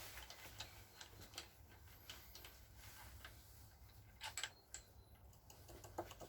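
Faint, scattered clicks and light metallic taps from engine parts and tools being handled, with a few in quick succession about four seconds in.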